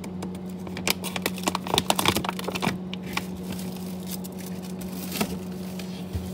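Irregular sharp clicks and light knocks, most frequent in the second and third seconds, over a steady low hum.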